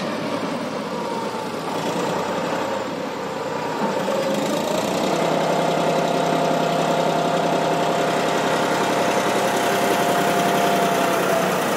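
Combine harvester's diesel engine running steadily as the machine creeps forward. It gets a little louder about four seconds in, with a steady whine on top from then on.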